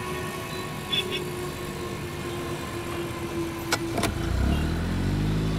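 Road traffic: vehicle engines running steadily, with a couple of sharp clicks, and a heavier engine sound swelling up about four seconds in.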